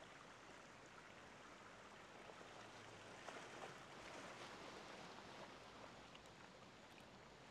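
Faint wash of ocean waves, an even hiss that swells a little about halfway through and eases again near the end.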